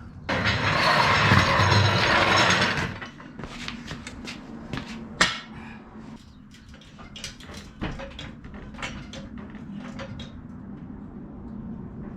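Steel jack stands and jack being repositioned under the car: a loud scraping rush for about two and a half seconds, then a run of light metal clanks and knocks, one sharper knock about five seconds in.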